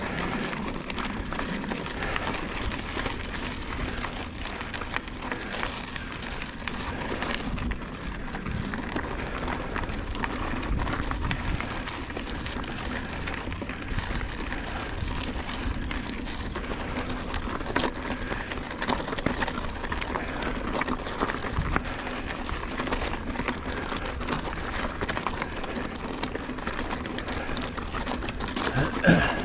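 Motobecane HAL Boost Eagle mountain bike rolling along rocky single track: a steady crunching rush of tyres on dirt and stones, dotted with many small clicks and rattles from the bike.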